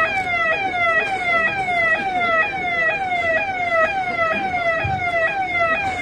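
Electronic siren sounding a fast, repeating downward sweep, about two falling wails a second.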